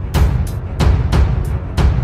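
Dramatic soundtrack music with a heavy, driving drum beat of about three hits a second over deep bass.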